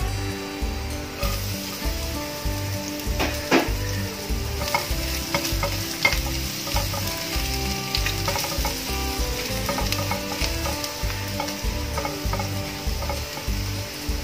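Chopped garlic sizzling as it fries in hot oil in a ceramic-coated wok, the sizzle starting about a second in, while a spatula stirs and scrapes it around the pan with a few sharp clicks.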